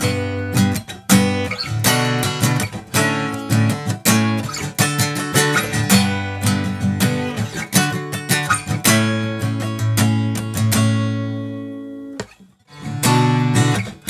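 Steel-string acoustic guitar strummed in chords, fitted with a composite nut and saddle. About eleven seconds in, one chord is left to ring and fade. After a brief break the strumming starts again, now with a bone nut and saddle.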